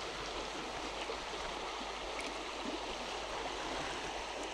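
Small stream flowing: a steady, even rush of running water.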